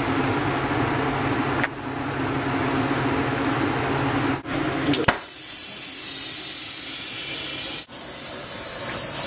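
A steady low hum, then about five seconds in a gas torch starts with a loud, steady hiss as its flame plays on the crucible to melt scrap gold for a centrifugal casting.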